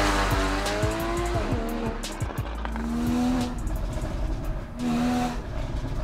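Porsche 981 Boxster GTS 3.4-litre flat-six with its sports exhaust, pulling away hard, its engine note fading as the car moves off, with a quick run of sharp pops in the first second or so.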